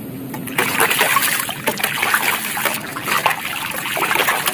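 Shallow muddy water splashing and sloshing as a plastic toy hammer is dragged up out of it by hand, getting louder about half a second in.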